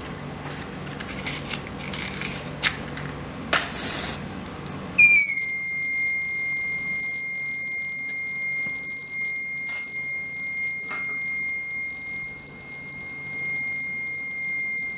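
Buzzer of a thermistor fire-alarm circuit switching on about five seconds in and sounding one loud, steady high-pitched tone: the alarm triggered by heat at the thermistor. Before it, a few faint clicks.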